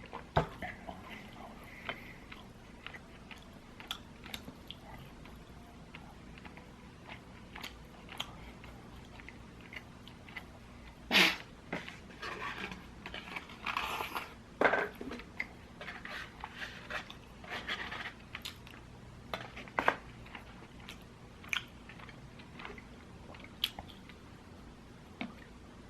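Close-up eating of crispy fried chicken: bites crunching through the fried coating and chewing, made up of many small clicks and crunches, with a run of louder crunching bites near the middle.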